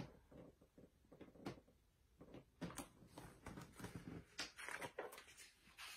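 Near silence with a few faint taps and rustles from a picture book being handled as its pages are turned.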